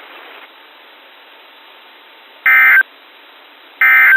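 NOAA Weather Radio SAME digital data bursts: two short, identical buzzy bursts about 1.3 seconds apart, over steady radio hiss. They are the End of Message code that closes the broadcast's required weekly test.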